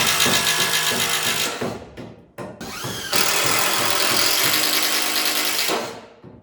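Power drill driving screws into timber in two long runs, the second spinning up near the start and running steadily until near the end.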